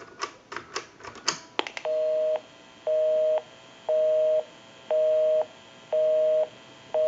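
A quick run of clicks as the number is dialed, then a telephone line's busy signal: six steady two-tone beeps, each about half a second on and half a second off, because the number called is engaged.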